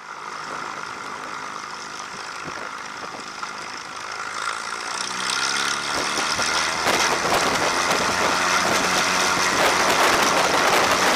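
Cessna 182's engine and propeller going from low power up to takeoff power. The pitch rises and the sound gets louder about five seconds in, then holds steady at full power.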